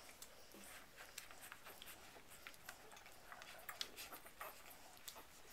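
Faint, irregular wet clicks and smacks of a litter of young puppies suckling at their mother.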